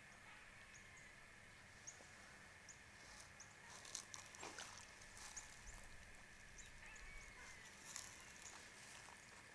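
Near silence: faint outdoor ambience with soft, evenly repeated high chirps and a few seconds of light crackling in the middle.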